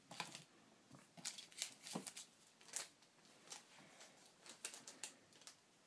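Faint, irregular soft ticks and rustles of hands handling trading cards and booster packaging.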